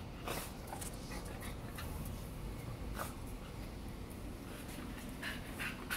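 Shetland sheepdog sniffing in short, scattered snuffs, with a cluster of them near the end.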